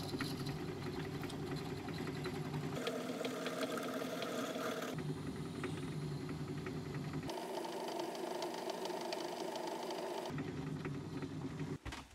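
Myford ML7 hobby lathe running, with a twist drill from the tailstock boring into a spinning phosphor bronze bar. The hum shifts abruptly every few seconds and fades out near the end.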